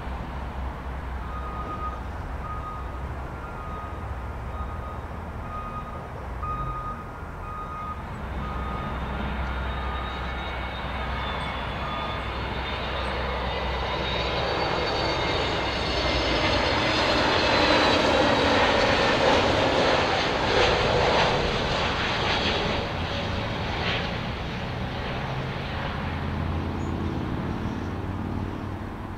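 Airbus A321neo's CFM LEAP-1A turbofan engines whining on low final approach: the whine builds from about a third of the way in, is loudest as the jet passes overhead a little past the middle, then fades. Before it comes a steady low jet rumble with a thin tone.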